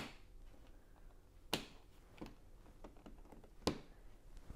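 Plastic Lego pieces clicking as they are handled and pressed onto the build: three sharp clicks, at the start, about a second and a half in and near the end, with a few fainter ticks between.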